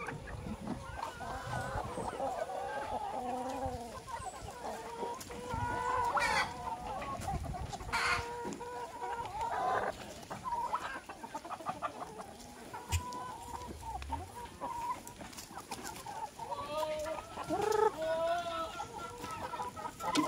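A flock of free-range chickens clucking and calling continuously as they crowd around to feed, with a few louder calls standing out.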